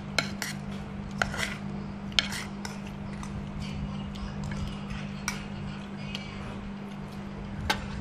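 Metal spoons clinking against ceramic bowls and plates while eating: scattered light clicks and taps, a few in the first two seconds and more spaced out after. A steady low hum runs underneath.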